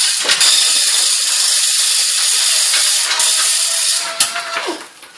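Manual chain hoist being hauled to lift an engine block: a fast, steady ratcheting clatter of the pawl and running chain, which stops about four seconds in.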